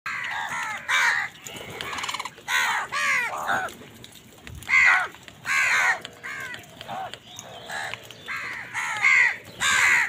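A flock of house crows cawing, many harsh calls overlapping in quick clusters, some louder and nearer than others.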